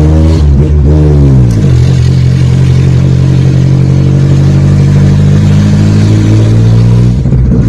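Straight-piped VW AP 1.8 four-cylinder, carburetted and breathing through a 4-into-1 header, on a loud exhaust. The revs fall over the first second and a half, then hold steady in a constant drone until a brief break near the end.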